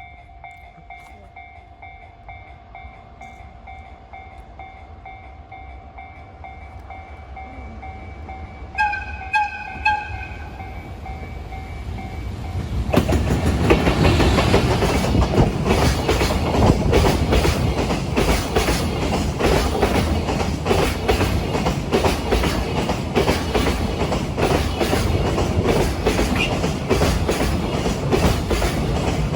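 A Japanese level-crossing warning bell rings steadily as a freight train approaches. About nine seconds in, the locomotive's horn gives three short blasts as a courtesy horn. From about thirteen seconds the freight train passes loudly, its wheels clacking over the rail joints.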